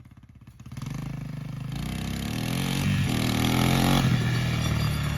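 1986 Yamaha YTM225 three-wheeler's single-cylinder four-stroke engine, faint at first, then growing louder about a second in and revving up, holding steady near the end.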